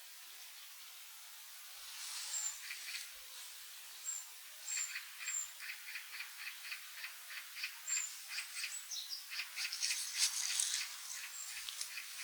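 Small forest birds calling: scattered thin, high-pitched notes, and from about four seconds in a steady run of short ticking calls, about three a second.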